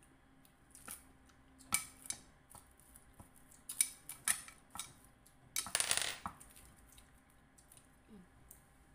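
A handful of sharp clinks and knocks of a plate of sliced guava being handled on a wooden board, with a longer crackling burst about six seconds in.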